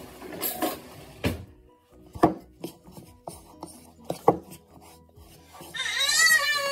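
Utensil stirring thick pancake batter in a bowl, with scattered sharp clicks and knocks against the bowl. Near the end a child cries out in a long, high, wavering voice.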